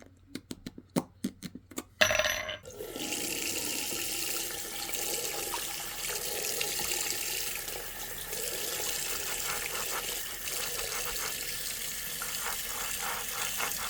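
A quick run of sharp clicks and knocks, then a tap is turned on about two seconds in and water runs steadily into a sink, with a few light knocks in the stream near the end as something is rinsed under it.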